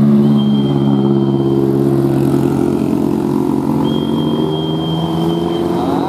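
Diesel engine of a coach bus running under load as it climbs a hill: a steady low drone, with a thin high whine over it for about a second near the start and again through the last two seconds.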